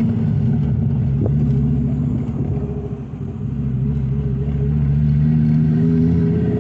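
2001 Fiat Marea Weekend's 2.4 20-valve five-cylinder engine, with its exhaust running through a diffuser fitted in place of the catalytic converter, heard from inside the cabin while driving. It is a low, steady engine note that eases off about three seconds in, then builds again.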